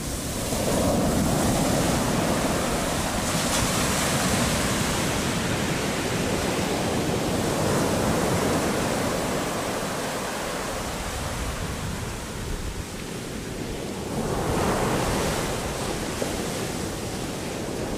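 Ocean surf breaking and washing up on a beach, a steady rush that swells about a second in and again near the end, with wind buffeting the microphone.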